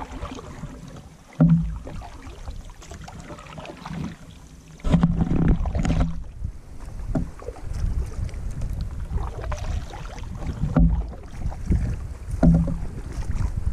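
Canoe paddle strokes: the blade dipping and pulling through calm water, with water swirling off the blade and along the hull. A low, uneven rumble of wind on the microphone comes and goes in gusts.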